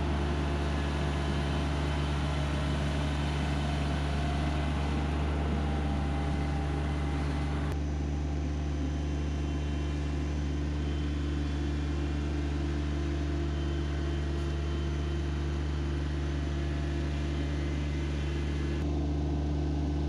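Compact tractor engine running steadily at a constant idle speed.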